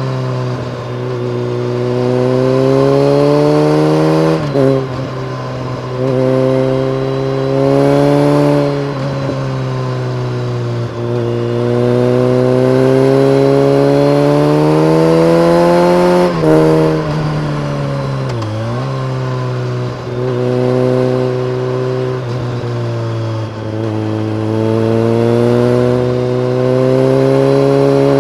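BMW K1300R inline-four engine through a full Akrapovic race exhaust with a dB killer, pulling up through the revs several times and dropping back at gear changes or off the throttle. The longest climb runs about six seconds through the middle, followed by a sharp drop and a brief dip.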